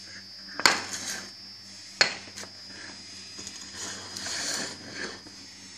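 Removed shock absorbers and a rubber strut top mount being handled and set down on a tiled floor: two sharp metal knocks, about half a second and two seconds in, then lighter clattering.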